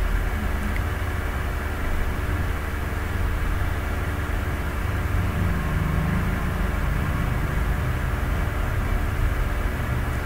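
Steady low rumble with a constant hum, unchanging throughout.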